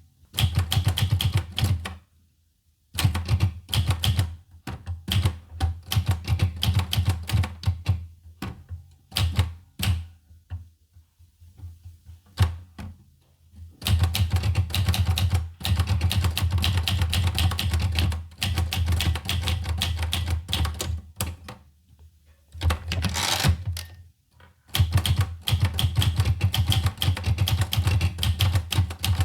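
Olivetti Lettera 25 manual portable typewriter being typed on: rapid keystrokes clack in bursts with short pauses, thinning to scattered strikes for a few seconds in the middle before fast typing resumes.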